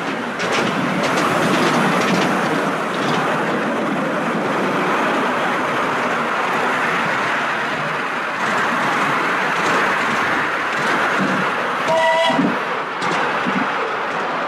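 Miniature railway train running, heard from a passenger carriage: a steady rumble and clatter of the wheels on the narrow-gauge track. Near the end the steam locomotive gives one short toot on its whistle.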